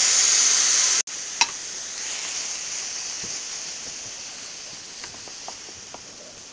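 Chopped green beans sizzling in hot oil in a kadai, loud at first, then dropping suddenly about a second in to a quieter sizzle that slowly fades. A wooden spatula stirs them, with a sharp knock against the pan early on and a few lighter knocks later.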